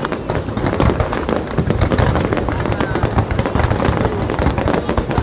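Fireworks display going off: a dense, unbroken run of crackles and bangs over repeated deep booms.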